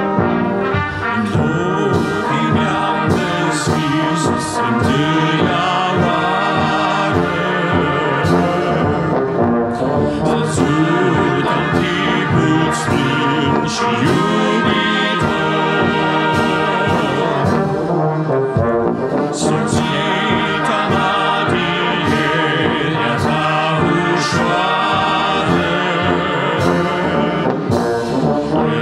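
Church brass band of trumpets, trombones, euphoniums, tubas and sousaphone, with clarinets, playing a hymn tune in full, steady ensemble.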